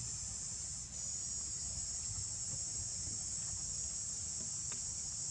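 Steady high-pitched drone of a chorus of insects, with a brief dip about a second in, over a low rumble.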